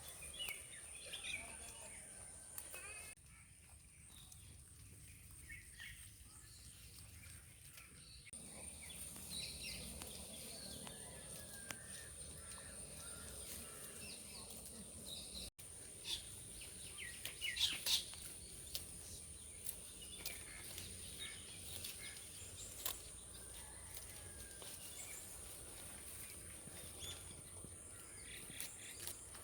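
Rural outdoor ambience with birds chirping on and off over a steady high-pitched whine, with a brief louder flurry of sharp chirps a little past the middle.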